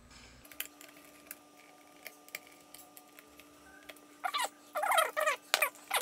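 Hand screwdriver turning screws in the G4 iMac's base: faint scattered clicks, then about four seconds in, a run of short squeaks.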